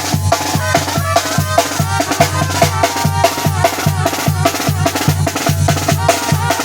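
Zacatecan tamborazo band playing. The tambora bass drum and snare keep a steady beat under trumpets and saxophones carrying the melody.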